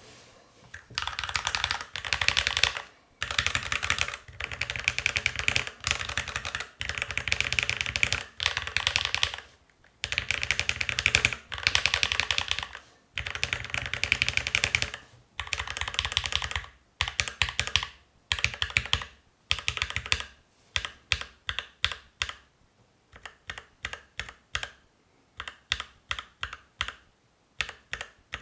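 Custom mechanical keyboard with linear switches being typed on: fast runs of keystrokes with short pauses, then slower separate key presses from about 20 seconds in.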